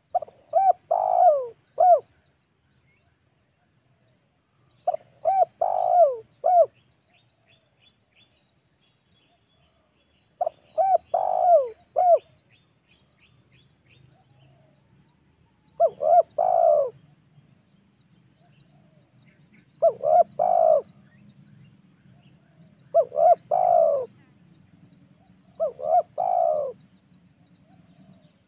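Spotted dove cooing: seven phrases of three or four coos each, a few seconds apart.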